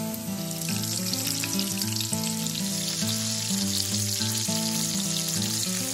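Breaded cutlets sizzling and crackling as they shallow-fry in hot oil in a pan, the sizzle growing louder about a second in. Background music plays underneath.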